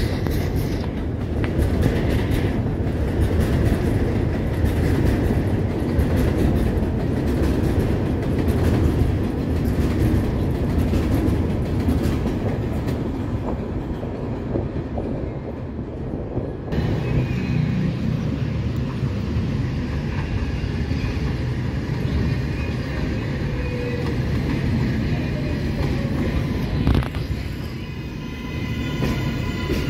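R188 subway cars of the 7 train running along the elevated steel structure, with a steady rumble of wheels on rail. About 17 seconds in the sound changes abruptly at a cut, and then another R188 train pulls into an elevated platform.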